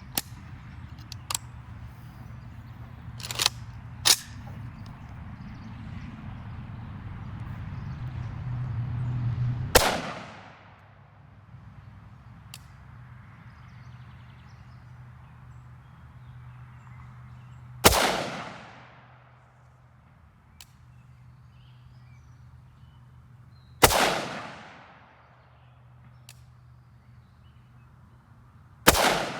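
Four single rifle shots from a 5.45×39 rifle, fired several seconds apart, each a sharp crack followed by an echo that dies away. A few lighter clicks come in the first few seconds, before the first shot.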